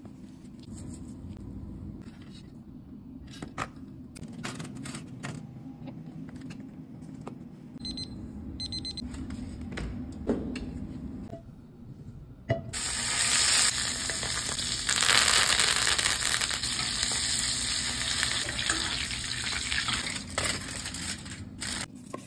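Steaks searing in oil in a hot cast-iron skillet over a gas burner, a loud sizzle that starts abruptly about halfway through: the high-heat sear that gives a reverse-seared steak its crust. Before it come soft rustles and light taps as the raw steaks are patted with paper towel.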